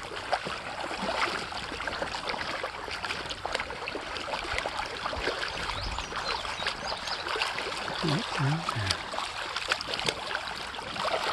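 Stream water running and trickling steadily, with many small scattered clicks over it. Two short low falling tones come through about eight seconds in.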